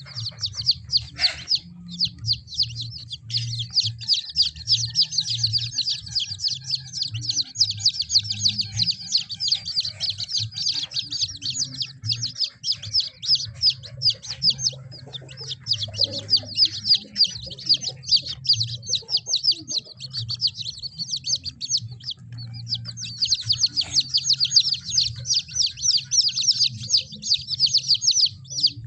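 Many kampung chicks peeping together, a dense stream of rapid, high, overlapping chirps with a couple of brief lulls, over a low rumble.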